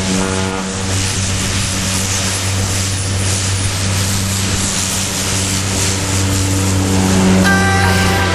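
Single-engine turboprop plane under takeoff power on its runway roll, a steady propeller and engine drone with a rushing hiss over it.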